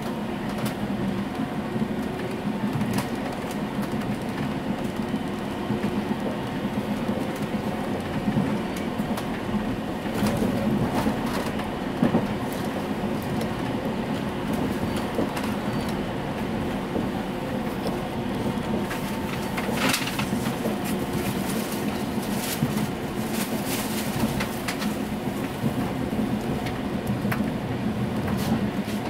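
Tram running along its track, heard from inside the passenger cabin: a steady low rolling rumble of wheels on rails, with scattered sharp clicks and rattles that come thicker about two-thirds of the way in.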